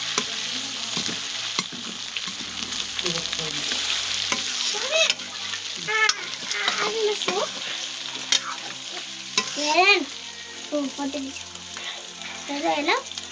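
Mutton pieces sizzling as they fry in a steel kadai, with a steel ladle scraping and clicking against the pan as it stirs them. A few brief pitched calls rise over the sizzle, loudest about ten seconds in.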